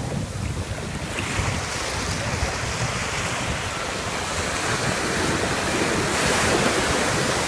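Ocean surf washing in steadily, with wind buffeting the microphone; the wash swells a little about six seconds in.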